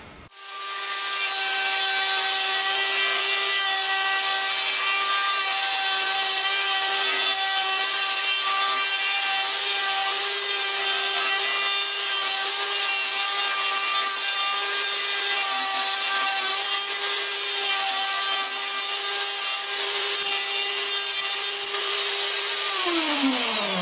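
Wood router on a pantorouter starting up and running at a steady high whine while it cuts integral dowels into the end of a piece of wood. Near the end it is switched off and its pitch falls as it winds down.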